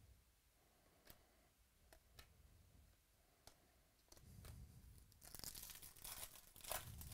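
Faint clicks of trading cards being handled, then from about four seconds in a foil card-pack wrapper being torn open and crinkled, loudest near the end.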